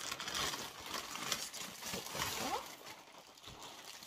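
Black plastic mailer bag rustling and crinkling as it is handled and pulled off a parcel, in irregular crackly bursts.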